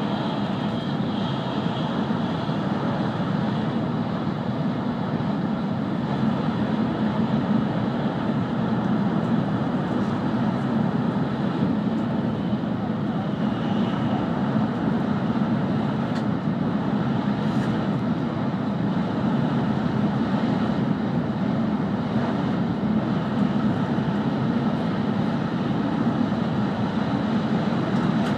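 Steady running noise inside a passenger car of an E5 series Shinkansen travelling at speed: an even, low rumble with no breaks.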